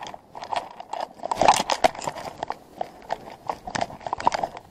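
Footsteps scrambling over boulders and loose cobbles: shoes scuffing and stones clacking and crunching against each other in irregular knocks.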